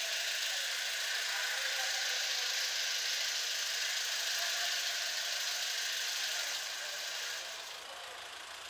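Jeepney's Mitsubishi 4DR5 four-cylinder diesel engine idling steadily, the sound growing quieter near the end.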